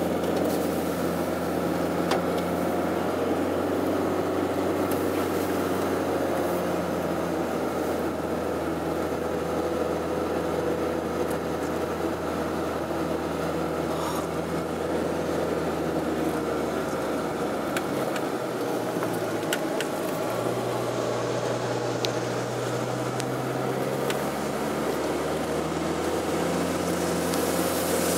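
Car engine and tyre noise heard from inside the cabin while driving, running steadily; about two-thirds of the way through, the engine note steps up in pitch for several seconds, then drops back.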